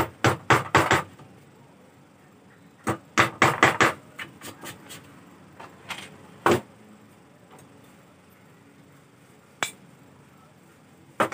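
A nail being tapped into plywood to start pilot holes for a concealed hinge's screws: a quick run of about five sharp taps right away, another run of about six a few seconds in, then a few single taps.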